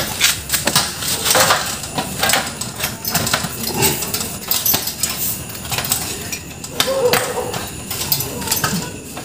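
Sheet-metal panels and casing parts of a Mitsubishi inverter air conditioner's outdoor unit being handled and fitted back together during reassembly: a run of quick metallic clanks, clicks and rattles.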